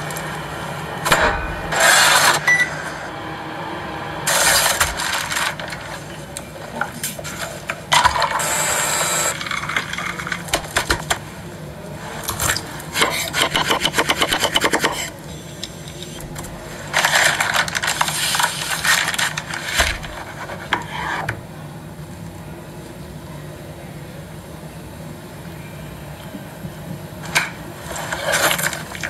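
A string of cake-making sounds: scrapes, taps and rustles of utensils, batter and fruit on a wooden board and tray, in separate bursts of a second or two over a low steady hum.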